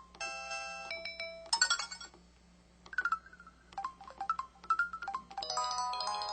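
Samsung SCH-B340 mobile phone playing its built-in effect sounds one after another: short electronic chimes and jingles with brief gaps between them, one gliding down in pitch about three seconds in.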